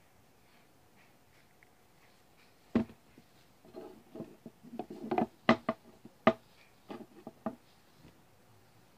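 Close-up handling noise: quiet for a couple of seconds, then a scatter of sharp clicks and taps, a few of them much louder, as hands and hair move right against the phone's microphone.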